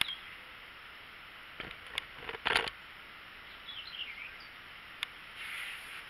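Quiet outdoor background with a few sharp clicks and a short cluster of louder knocks about two and a half seconds in, and a bird's few short chirps about a second later.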